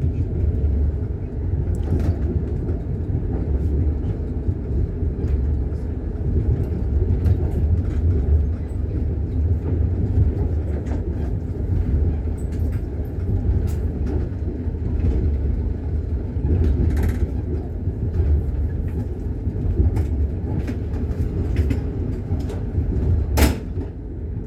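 Moving train's wheels running over the rails: a steady low rumble with scattered clicks of wheel clatter, heard from on board the train. One sharper, louder knock comes near the end.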